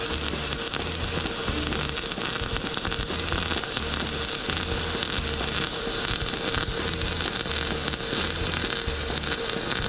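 MIG welding arc from a Fronius TransSteel 2200 running 0.045 metal-cored wire with 90/10 argon-CO2 shielding gas: a steady crackling hiss as it lays a continuous bead on quarter-inch steel. Background music with a steady beat runs beneath it.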